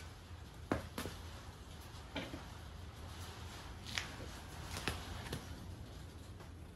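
Scattered light clicks and knocks, about six in all, from hands working at a motorcycle's rear wheel and stand, over a low steady hum.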